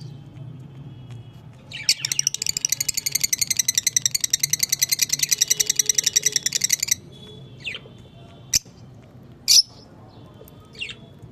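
Small pet parrots (love birds) calling: about two seconds in comes a fast, even run of high chirps, about ten a second for some five seconds. Then a few single sharp chirps follow, a second or so apart.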